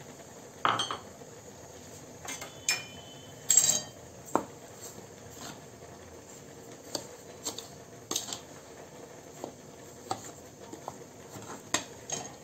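Steel spoon stirring a dry flour-and-sugar mix in a ceramic bowl: irregular scrapes, taps and clinks of metal against the bowl, the loudest about three and a half seconds in, a couple of them ringing briefly.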